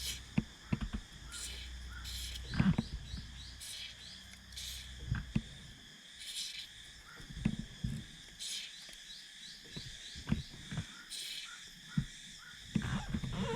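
An aerosol can of LS Bellhammer Gold lubricant hissing in several short bursts as it is sprayed onto a drive shaft's outer CV joint. This is a treatment aimed at the joint's clicking noise. Insects chirp steadily underneath, with a few light knocks.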